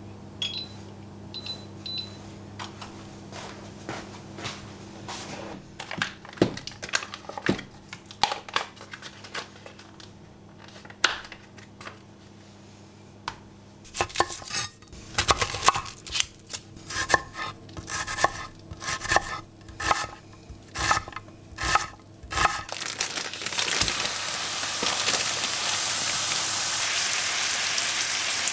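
A few short beeps from an induction hob at the start, then a chef's knife chopping an onion on a wooden cutting board in quick strokes. Near the end, raw minced meat sizzles as it fries in hot oil in a stainless steel frying pan.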